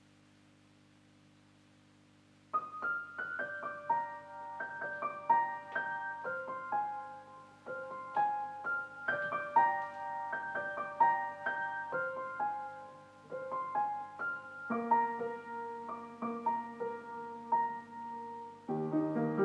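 Piano music: a faint low hum, then single piano notes begin about two and a half seconds in, playing a slow melody. Lower notes join later, and the playing grows fuller and louder near the end.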